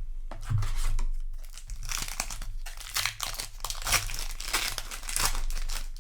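Foil wrapper of a Magic: The Gathering play booster pack crinkling and tearing, with dense crackling handling noise throughout.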